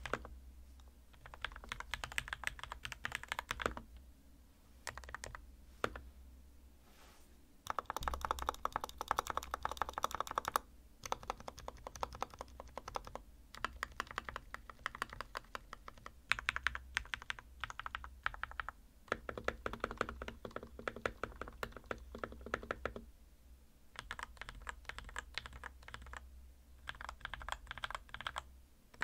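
Custom RK61 mechanical keyboard with lubed, tape-modded Gateron Milky Yellow linear switches being typed on quickly, in runs of rapid key clicks broken by short pauses.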